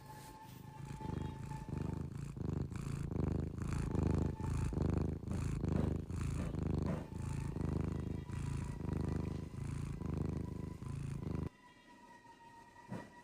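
Sleeping cat snoring: a low, rasping, purr-like sound with each breath, about once a second, which stops abruptly near the end.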